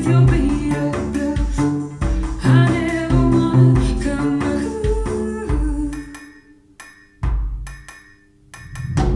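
Instrumental music with guitar and drums played on Polk Audio Reserve R200 bookshelf speakers. About six seconds in it drops to a quiet passage of a few sparse held notes, and the full band comes back in near the end.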